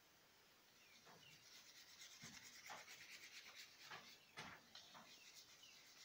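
Bristle paintbrush scrubbing acrylic paint across sketchbook paper in quick back-and-forth horizontal strokes, a faint scratchy rubbing that starts about a second in.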